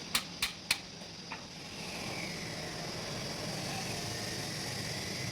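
Three quick, light metallic clicks in the first second and one fainter click a little later, as a small pin is fitted into a tractor gearbox's shift rod. A steady rumble of background noise follows.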